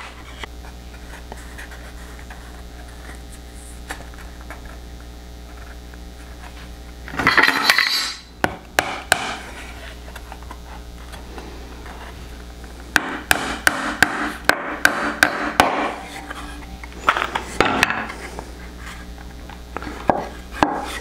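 Small hammer driving short nails by hand into thin wooden toolbox boards. A run of quick, light taps begins about two-thirds of the way in, and a few more come near the end, over a steady low hum. A brief rubbing sound comes about seven seconds in.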